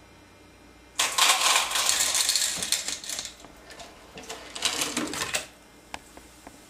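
A cup-load of marbles released into a funnel and rattling down the track: a sudden dense clatter starting about a second in that runs for about four seconds, then dies away into a few single clicks.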